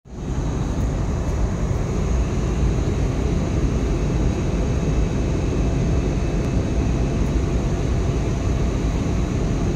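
Steady airliner cabin noise on descent: jet engine and airflow rumble, heaviest in the low end, with a faint high whine held steady over it.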